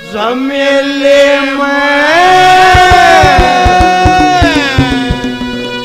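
A male voice sings a Haryanvi ragni into a microphone, rising to a long held note about two seconds in and falling away near the end. It runs over a steady instrumental accompaniment with a run of drum strokes.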